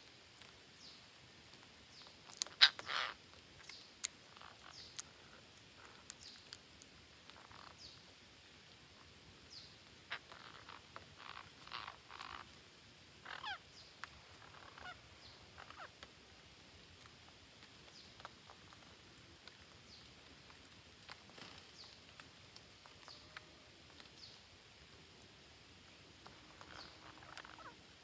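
A flock of green parakeets giving scattered short squawks and chatter. The loudest cluster of calls comes a few seconds in, with quieter calls now and then after that.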